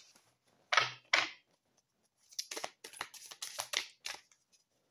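Oracle cards being shuffled by hand: two papery swishes about a second in, then a run of quick card snaps.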